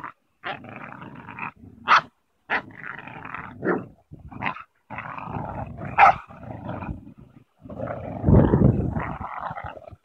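Pit bull–type dogs growling in play as they tug on a rope, in rough, uneven stretches with a few short sharp barks; the growling is loudest and deepest near the end.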